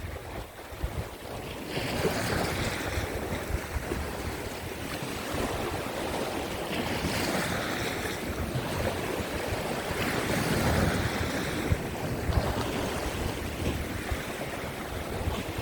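Rough surf breaking and washing over coastal rocks, swelling several times, with strong wind buffeting the microphone in a low rumble.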